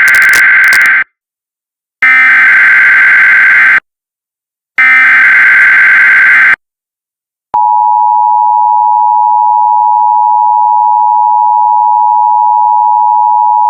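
Emergency Alert System SAME header: three bursts of shrill digital data tones about a second apart, the first already under way. About seven seconds in, the steady two-tone EAS attention signal starts and holds without a break.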